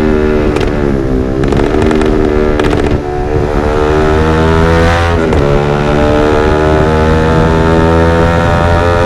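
Yamaha R15 V3's 155 cc single-cylinder engine through a Villan MP1 aftermarket exhaust, revving. The pitch drops and climbs again about a second in, with a cluster of crackling pops off the throttle. The note then holds steady, with another quick dip and rise about five seconds in.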